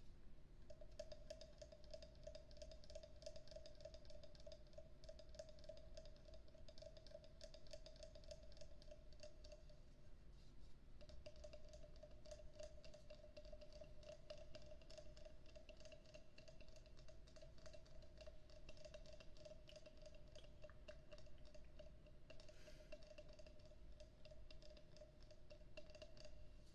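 Wooden frog percussion instrument scraped with its stick along the ridged back: a fast, faint run of wooden clicks over a steady tone, pausing briefly about ten seconds in.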